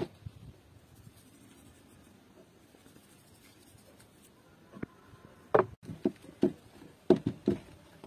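Faint handling sounds, then from about five seconds in a quick cluster of short knocks and thuds as a metal tray of raw caul fat is shifted on a wooden table.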